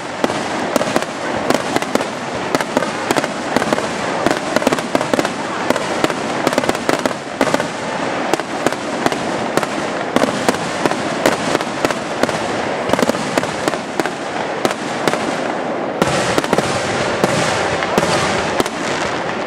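Fireworks display: aerial shells bursting in quick succession, a dense, unbroken run of sharp bangs and crackling.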